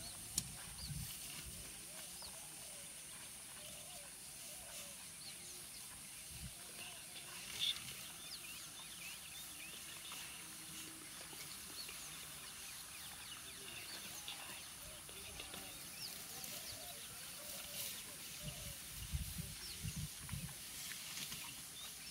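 Dusk bush ambience: a steady high-pitched insect drone with many short bird chirps scattered throughout, a few brief clicks, and low rumbles near the start and towards the end.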